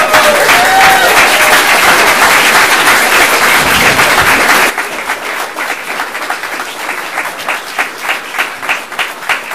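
Audience applauding a swearing-in oath: a dense, loud burst of clapping for about four and a half seconds, which then drops suddenly to thinner applause with separate claps heard.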